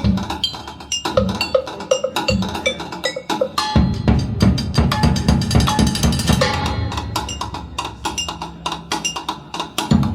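Percussion-driven recorded music with drums and wood-block-like hits, played back over hi-fi loudspeakers in a demo room and heard through a camera's built-in microphone; a fuller drum part with deep bass comes in about four seconds in.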